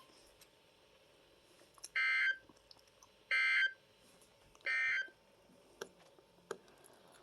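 Three short bursts of Emergency Alert System SAME header data, the warbling digital screech that opens an EAS or weather radio alert, each about half a second long and about a second apart. Two faint clicks follow near the end.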